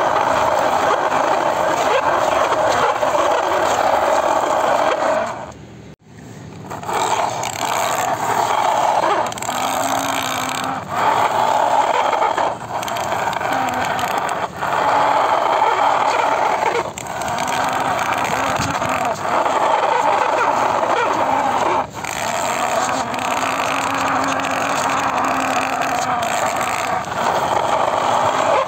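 Plastic toy vehicles pushed by hand through sand on concrete: a continuous gritty scraping and rolling of the plastic wheels and bodies over the grit. It comes in stretches of a few seconds each, with a short break about six seconds in.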